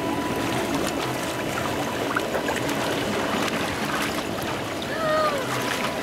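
Water splashing and sloshing in a shallow inflatable water-slide pool as children move through it, over a steady rush of running water. A child's voice gives a brief gliding call about five seconds in.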